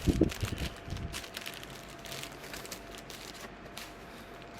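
A shipping package being handled and opened: crinkling, rustling packaging with a few heavy thuds in the first second, then scattered crackles.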